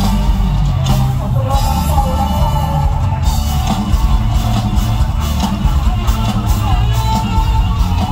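Live amplified Isan mor lam band music in the upbeat toei style, with strong bass.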